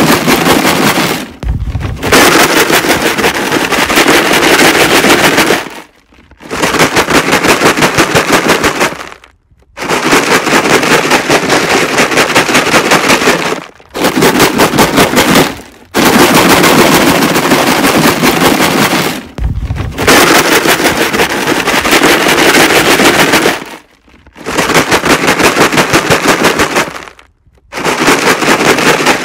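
A plastic jug filled with rocks being shaken hard: loud, rapid rattling in about eight bouts of a few seconds each, with short breaks between them. It is the jug-of-rocks distraction noise used to habituate protection dogs.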